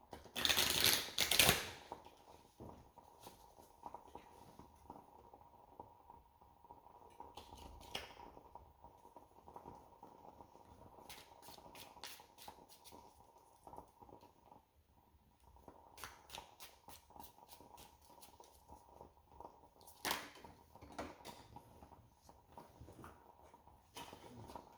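Deck of oracle cards being shuffled and handled: a short rustling burst near the start, then faint scattered card clicks with several quick runs of flicks.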